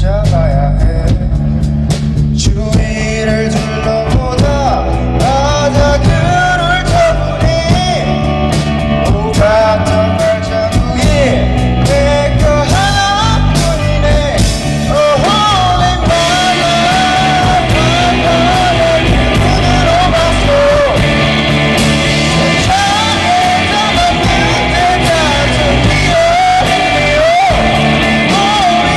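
Live rock band playing with a singer: electric guitars, bass guitar and drum kit, with the cymbals filling in more from about halfway.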